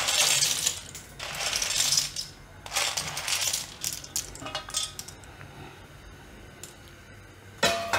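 Dry elbow macaroni rattling as it is scooped and poured from a glass bowl into a plastic strainer basket, in several short bursts over the first half, then quieter.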